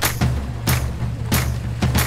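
Background music with a steady drum beat over deep bass.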